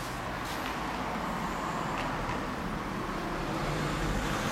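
Road traffic noise from passing vehicles, a steady rumble and hiss that grows a little louder near the end.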